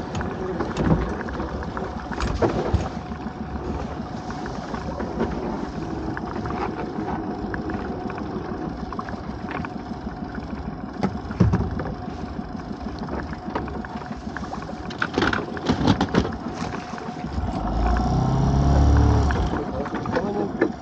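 Small boat's engine idling with a steady hum, with occasional knocks of fishing gear against the hull. Near the end a louder low rumble swells and fades.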